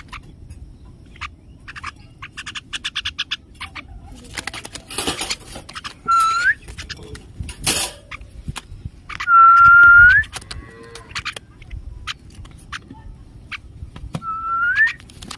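A person whistling to call a pet common myna: three loud whistled notes, each held on one pitch and then flicking upward at the end, the longest about ten seconds in. A short burst of rapid chattering bird calls comes about three seconds in.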